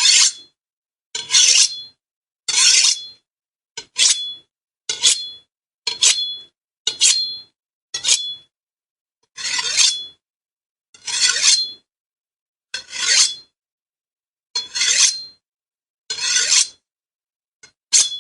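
Machete blade scraping in a series of short strokes, about one every second or so, each ending in a brief metallic ring.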